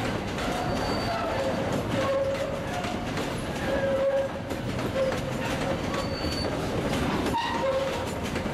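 Freight train of steel hopper cars rolling past close by. The wheels clatter over the rail joints, with short, high-pitched squeals from the wheels every second or so.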